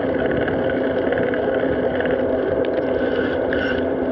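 Steady rushing wind and road noise on a moving bicycle's action-camera microphone while riding.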